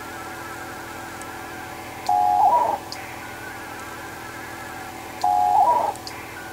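WINMOR digital-mode data exchange heard over a shortwave radio setup. A faint, fast warbling of data tones alternates with two louder tone bursts about three seconds apart, each a short steady beep pair breaking into a warble, over a steady low hum.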